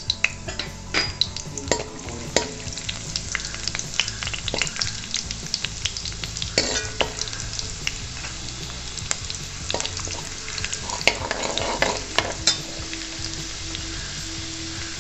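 Vadouvan (vadagam) frying in hot oil in a kadai, sizzling steadily with dense crackles and sharp pops as it tempers. A metal ladle stirs it near the end.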